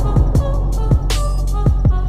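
Background music: a deep kick drum whose pitch slides down on each hit, a few times a second over a steady bass, with short high melodic notes.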